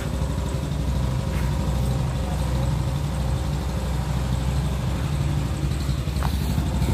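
A small pickup truck's engine idling steadily, a low even rumble.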